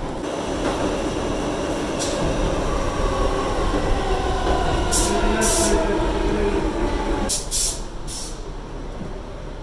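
New York subway car running and slowing into a station: a motor whine falls in pitch over the rumble of the wheels, with several short hissing bursts. The noise drops off about three-quarters of the way through as the train comes to a stop.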